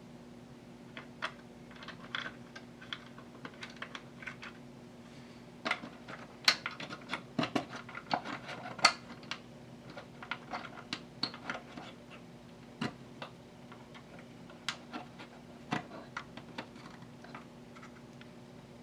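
Irregular light clicks, taps and clatter of metal parts and tools being handled while an audio amplifier is put back together, with a few louder knocks about six to nine seconds in, over a faint steady hum.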